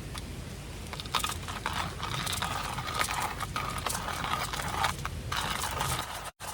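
Steady rain hiss, with a dense run of irregular taps and crackles from about a second in that stops shortly before a sudden cutoff near the end.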